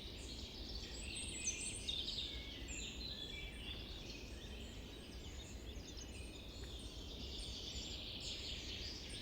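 Faint outdoor ambience of many small birds chirping and twittering continuously, over a low, steady rumble.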